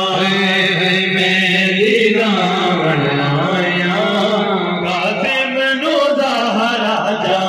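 A male voice chanting a noha, a Shia mourning lament, into a microphone, with long held notes that waver and glide.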